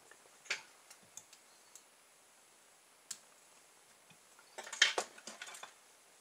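Small sharp ticks from work at a fly-tying vise: a few scattered ticks, then a quick cluster of snips about five seconds in from fly-tying scissors trimming off the waste end of the wrapped guinea fowl hackle.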